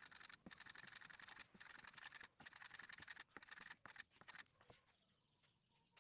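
Hand tool working wood in a series of short rasping strokes, each about half a second to a second long with brief pauses between. Near the end it gives way to a few light clicks.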